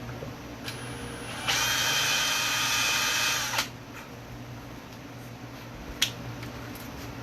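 Power drill boring a strap-button hole into the wooden tail of a bass body, running steadily for about two seconds before stopping. A single sharp click comes a couple of seconds later.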